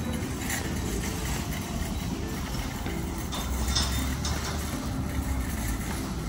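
A vehicle engine idling steadily, with a few short knocks or clicks.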